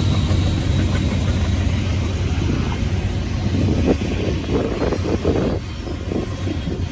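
A train passing close by, with a steady low rumble and uneven rattling surges that grow from about halfway through.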